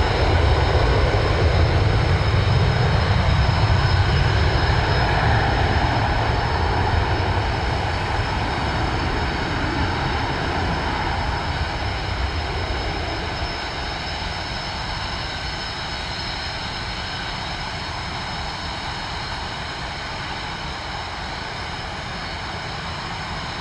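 Airplane engines running: a deep rumble with steady high whining tones, loudest in the first several seconds, then gradually fading and settling to a steadier, lower level.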